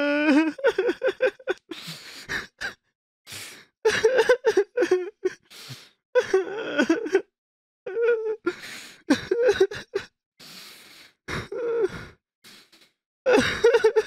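A person crying in broken sobs: short wailing cries with gasping breaths between them and brief pauses.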